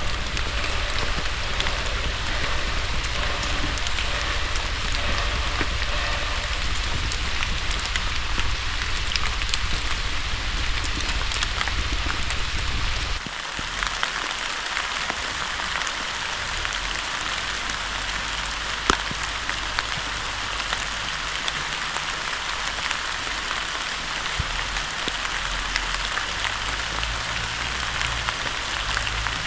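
Steady rain falling, a dense patter of small drops. A low rumble underneath cuts off suddenly about thirteen seconds in, and a single sharp tick comes a few seconds later.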